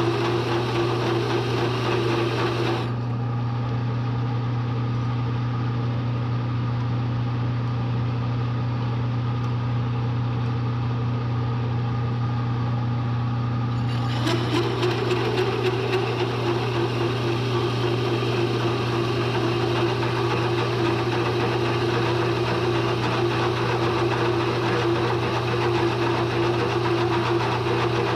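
Bridgeport milling machine running steadily with a hole saw cutting into steel plate, over a constant low hum. The hissy top end of the sound drops away about three seconds in and returns near the middle.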